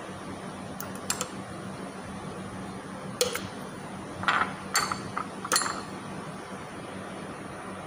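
Metal fork clinking and scraping against a clear plastic container of aloe vera gel: a couple of light clicks about a second in, then a run of sharper clinks between about three and six seconds in, over a steady low hum.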